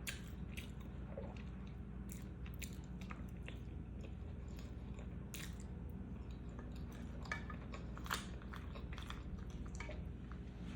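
Close-miked chewing and biting of a boneless chicken wing in medium buffalo sauce, with scattered short mouth clicks and smacks.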